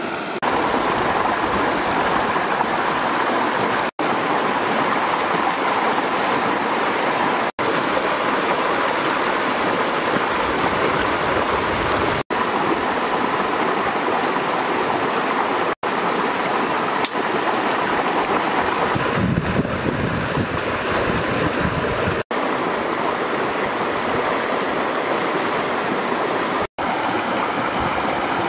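Shallow rocky river rushing steadily over a small cascade, a constant wash of water noise. It drops out for a split second six times, roughly every three to five seconds.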